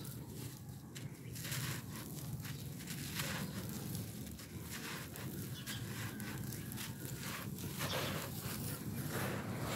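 Dry compressed red-dirt slabs crumbling in the hands: a gritty, crunchy crackling of breaking clods, with loose dirt pouring and pattering down through the fingers, over a low steady rumble.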